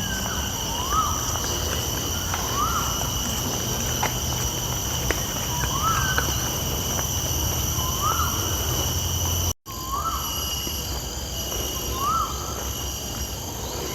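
A bird repeats one short rising note about every second and a half over a steady high-pitched drone of insects. The sound cuts out for an instant about two-thirds of the way through.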